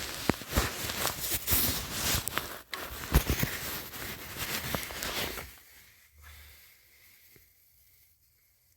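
Handling noise: rubbing, scraping and a scatter of small clicks, as hands fumble with a tire inflator's hose and its screw-on chuck. It stops about five and a half seconds in, leaving near quiet.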